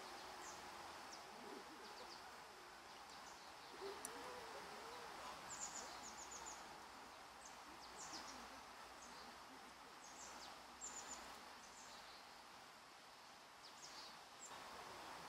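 Quiet outdoor ambience: a low even hiss with scattered short, high bird chirps, some in quick runs of three to five.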